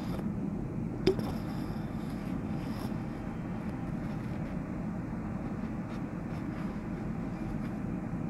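Steady low rumble of heavy road traffic heard from high above the road, with one sharp click about a second in.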